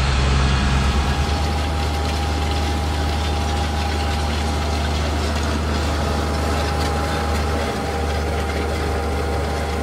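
Case IH 956 tractor's six-cylinder diesel engine running steadily at low revs, with a steady high whine on top.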